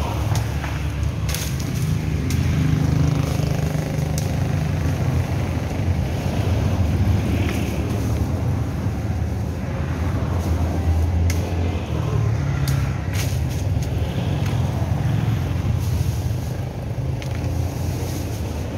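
Motor vehicle engines on a street: a steady low engine rumble that swells as cars pass close by. A few sharp clicks sound over it.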